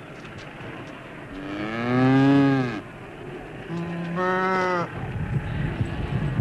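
Farm animals calling over the low noise of a crowded flock: one long call that rises and then falls, then a second, steadier call about a second later.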